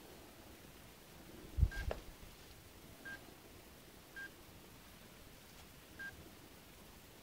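Four short, high electronic beeps at uneven gaps of a second or two. A dull low thump comes just before the first.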